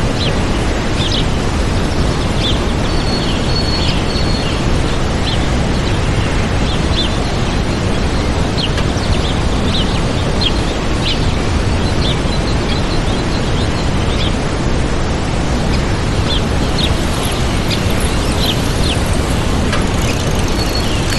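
Waterfall rushing steadily, with small birds chirping over it in short high calls scattered throughout and a brief held whistle or two.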